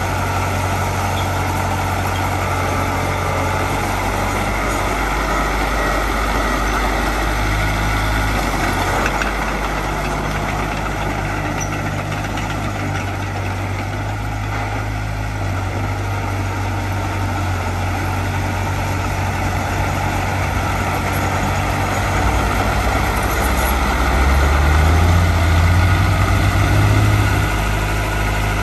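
Heavy machinery diesel engine running steadily, its pitch stepping up and down several times, then rising and getting louder for a few seconds near the end.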